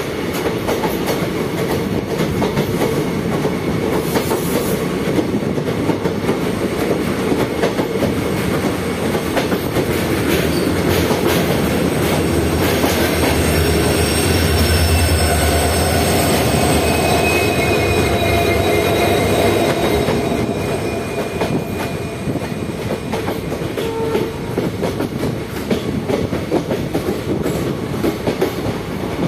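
A train running along the line: a steady rumble with clatter of wheels over the rails, louder in the middle, where a faint high wheel squeal comes in.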